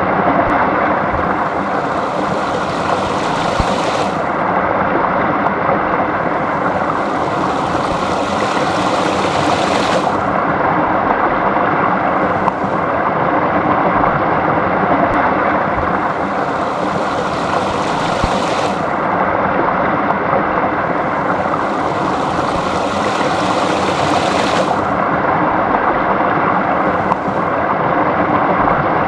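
Small stream flowing: a steady rush of running water, its hiss swelling and easing every few seconds.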